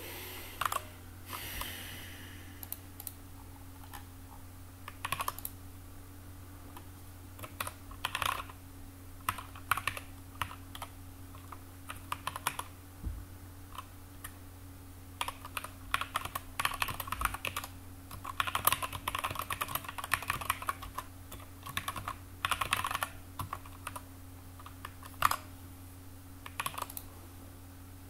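Typing on a computer keyboard: irregular runs of keystrokes with pauses between them, the busiest stretch in the middle. A steady low hum runs underneath.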